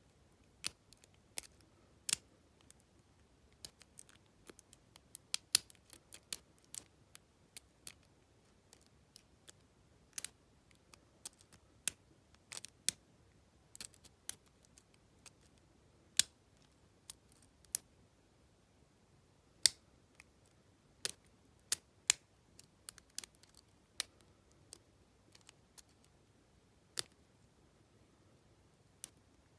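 Lock pick and tension wrench working the pins of an Abus T65AL/40 padlock: irregular, sharp little metal clicks and ticks, a few a second at most, with short pauses between them.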